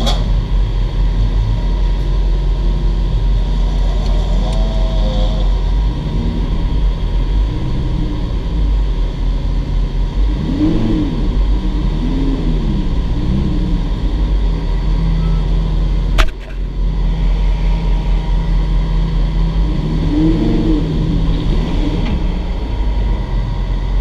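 Lamborghini Huracán's V10 engine idling, heard from inside the cabin as a loud, steady drone, with a few brief rises and falls in pitch. One sharp click about two-thirds of the way through.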